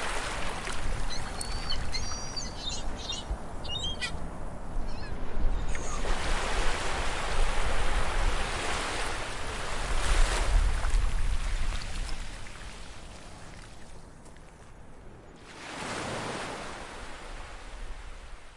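Ocean surf washing in and drawing back, swelling every few seconds, with a few short bird calls in the first few seconds. The sound fades out at the end.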